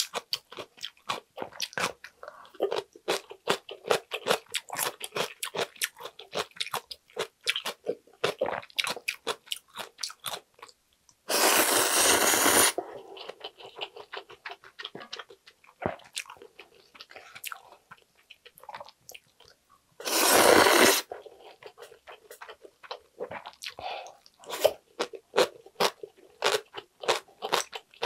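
Close-miked wet chewing and crunching of ramyun noodles and kimchi: a rapid, irregular run of mouth clicks. Twice, about eleven and twenty seconds in, a loud slurp lasting a second or so cuts through.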